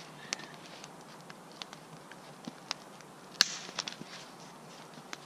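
Dry twigs and forest-floor debris snapping and rustling in scattered light clicks, with one sharper crack a little past halfway.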